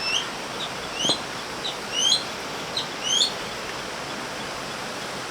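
A bird giving a string of about seven short, rising chirps over the first three and a half seconds, over a steady rushing background noise.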